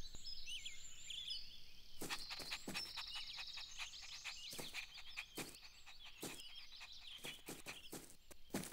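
Faint outdoor garden ambience of many small birds chirping and twittering, with scattered sharp clicks.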